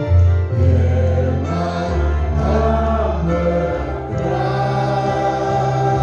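A congregation singing a hymn together, with sustained bass notes underneath that change every second or two.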